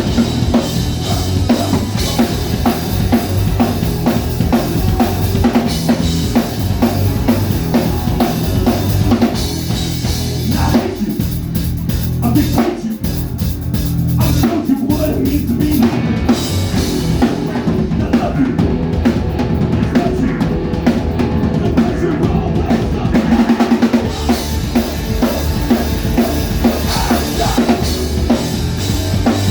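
A live band plays loudly, the drum kit driving with bass drum and snare under the other instruments. Midway, the higher sound drops away for several seconds before the full band comes back in.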